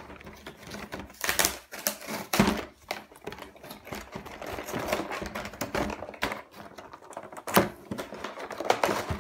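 Cardboard box and its packaging being pried open and handled, rustling and scraping, with several sharp knocks; the box is hard to open.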